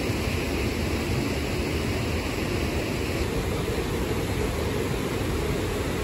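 A steady, even rush of water with no breaks or separate drips.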